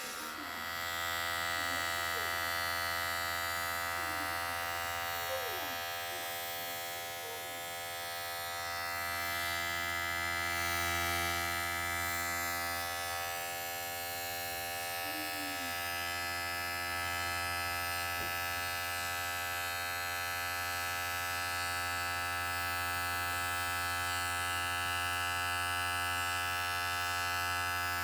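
Electric hair clipper running with a steady buzz and hum. It gets a little louder about a second in.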